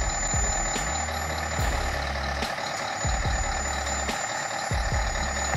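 Heavy loaded logging truck running on a rough road, a steady mechanical noise with repeated low thuds.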